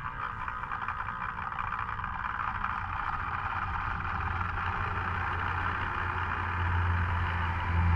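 A steady running motor or vehicle sound that starts abruptly, with a low rumble building and growing louder toward the end.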